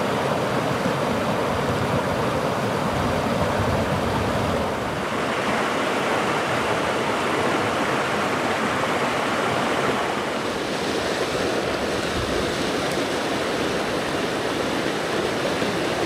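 Mountain stream rushing over boulders and stones in shallow rapids, a steady, loud rush of water. Its tone brightens about five seconds in and softens again about ten seconds in.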